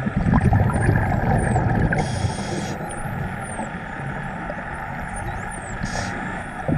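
Underwater ambience: a low rumble, strongest in the first two seconds, with faint high dolphin whistles that glide up and down again and again. Short hissing bursts come about two seconds in and near the end.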